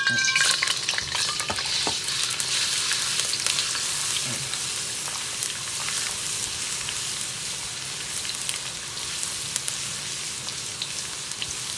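Minced garlic sizzling in hot oil in a wok while a spatula stirs it, with scattered clicks of the spatula on the pan. The sizzle is loudest as the garlic goes in and eases off gradually.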